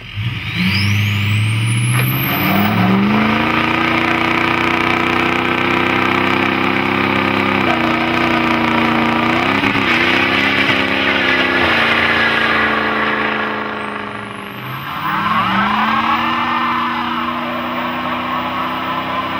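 2004 Ford F250's Power Stroke diesel V8, breathing through Flowmaster Pro Series mufflers, revs up and is held at high revs in a burnout while the rear tires spin and screech. The revs sag about fourteen seconds in and then climb again, and the tire screech is loudest near the end.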